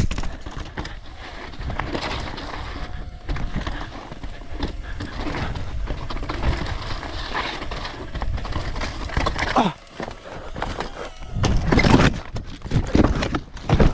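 Mountain bike rattling and clattering down bare rock, with wind rushing over the helmet camera. Near the end the rider crashes: several loud thuds and scrapes as bike, body and camera hit the rock.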